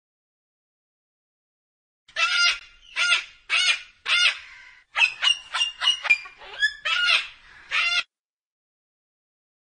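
A white cockatoo screeching: a string of harsh, loud calls starting about two seconds in, with a quick run of shorter, sharper notes in the middle and two more screeches near the end.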